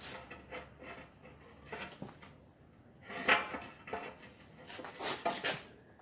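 Irregular metal knocks and clanks of a hammer and tire tools against a backhoe wheel's steel rim while the old tire is worked off it, the loudest strike about halfway through and a quick cluster near the end.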